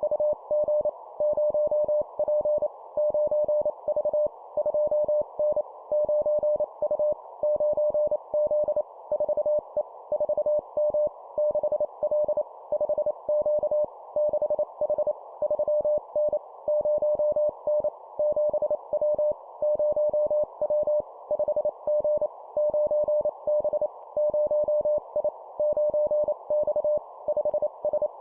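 Morse code (CW) sent at 25 words per minute: a single steady-pitch tone keyed on and off in short and long elements, spelling short groups of letters and numbers, over a steady hiss.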